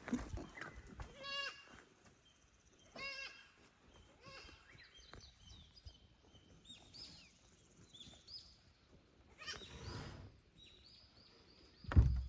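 Young goats bleating: three short, high bleats in the first few seconds, then a loud low bump near the end.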